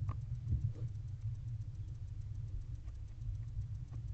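Barn owl tearing at a rat carcass on the nest-box floor: a few soft clicks and scuffs, several in the first second, over a steady low rumble.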